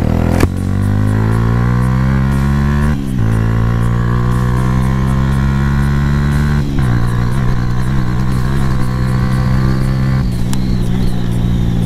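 Suzuki GS150 SE's 150 cc single-cylinder four-stroke engine accelerating hard through the gears. Its pitch rises, with two brief breaks for upshifts about three and seven seconds in, then it runs on at a steadier speed.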